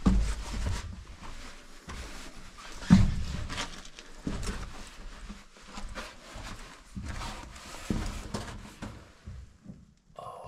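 Uneven footsteps, scuffs and knocks close to the microphone, with heavy breathing, as someone moves through a cramped rock-cut underground passage. The strongest knocks come at the very start and about three seconds in.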